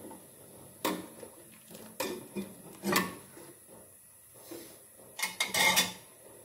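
Metal spatula and glass bowl clanking against a large aluminium wok as chayote pieces are tipped into coconut milk and stirred in. Several sharp separate knocks, the loudest about three seconds in and a quick cluster near the end.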